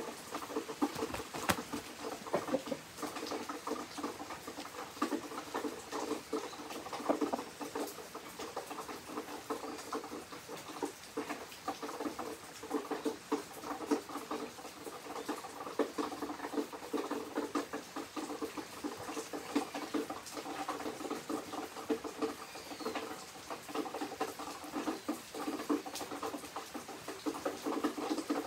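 Summer rain pattering steadily, a dense, irregular stream of small drops tapping on a surface.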